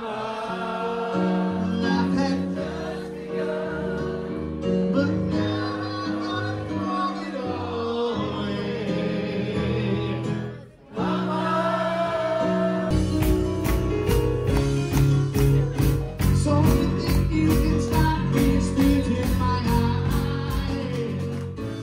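Live dueling-pianos show: piano with singing voices, several singing together. About eleven seconds in the music breaks briefly, then a new song comes in with a strong steady beat.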